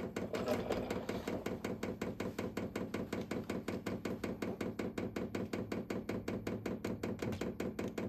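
Diesel heater's fuel dosing pump priming the line, clicking rapidly and evenly at about six ticks a second over a steady hum.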